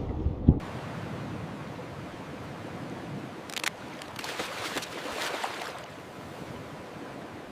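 Underwater ambient noise: a low rumble that stops with a sharp knock about half a second in, then a steady watery hiss with scattered clicks and crackles.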